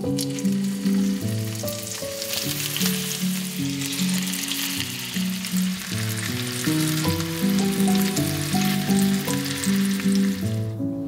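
Raw chicken drumsticks sizzling in hot ghee as they are laid one after another into the pan. The sizzle starts as the first piece goes in, is strongest in the middle and dies down near the end, with light instrumental music underneath.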